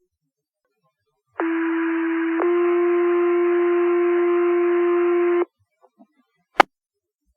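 Two-tone sequential pager alert over fire dispatch radio: one steady tone for about a second, then a slightly different tone held about three seconds. It sets off the volunteer firefighters' pagers ahead of a voice page. A short radio click comes just before it and another near the end.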